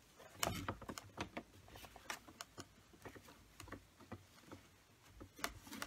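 A paper shopping bag and its ribbon handles being handled and tied, giving soft, irregular crinkles and small taps.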